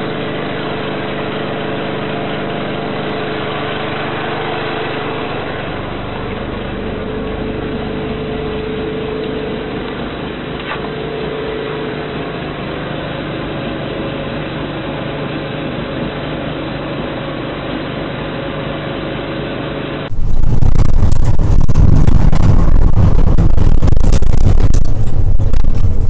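A steady machine hum with a few constant tones; about twenty seconds in it cuts abruptly to much louder, low road and engine noise heard from inside a car driving along a dirt road.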